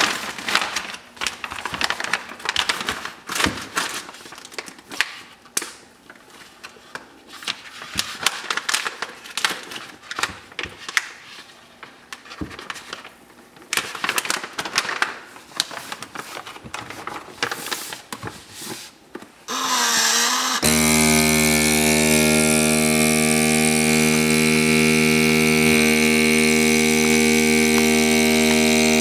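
Plastic bags crinkling and clicking as they are handled. About two-thirds of the way through, a countertop vacuum sealer's pump switches on and runs with a steady, even hum as it draws air out of the bag.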